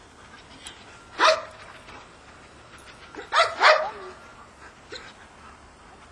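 Labrador retriever barking: one bark about a second in, then two quick barks in a row about two seconds later.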